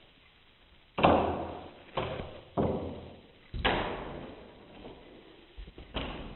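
Slowed-down thumps from a cat's chase game, five dull impacts spaced unevenly, each trailing off in a long echo.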